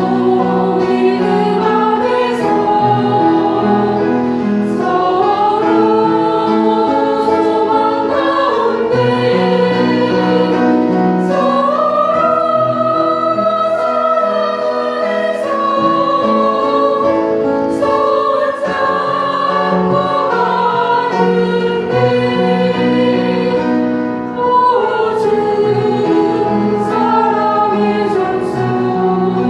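Church choir singing a hymn, with long held notes in several parts at once.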